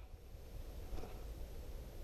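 Quiet pause on a dog's harness-mounted camera: only a faint, steady low rumble and light hiss, with none of the knocks and scrapes of running while the dog stands still.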